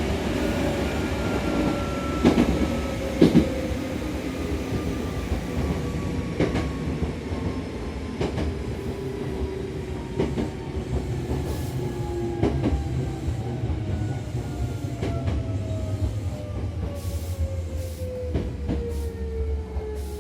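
Hankyu electric train running on the rails while it slows, its traction motor whine falling steadily in pitch over a low rumble. Rail-joint clicks sound under the wheels every second or two.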